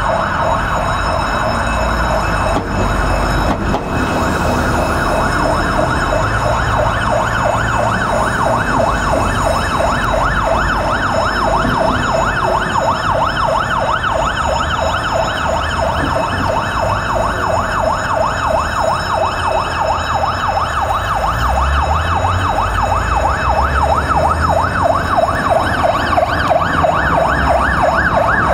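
Fire engine's electronic siren yelping, its pitch sweeping rapidly up and down several times a second without a break. A diesel engine's rumble runs beneath it and grows louder about two-thirds of the way in.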